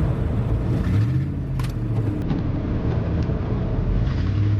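Car engine and road rumble heard from inside the cabin: a steady low drone that swells and rises in pitch about a second in and again near the end, as the car moves off.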